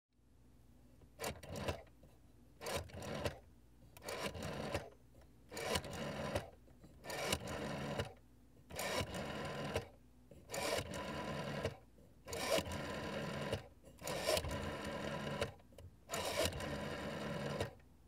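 Rotary telephone dial being dialled, about ten digits in turn: each one a short pull of the finger wheel followed by the whirring, clicking spin as the dial runs back, with brief pauses between digits.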